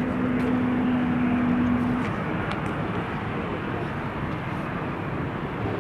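Passenger airliner's engines running: a steady rushing roar with a steady hum over it for the first two seconds.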